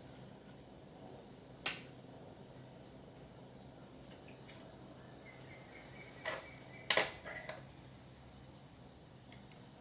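A few sharp clicks and knocks: one about two seconds in, then a short cluster about six to seven and a half seconds in, the loudest near seven seconds, over a faint steady high-pitched whine.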